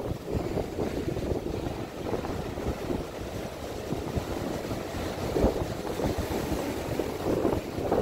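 Ocean surf breaking and washing up a sandy beach, a steady wash of water with one louder crash a little past the middle, and wind buffeting the microphone.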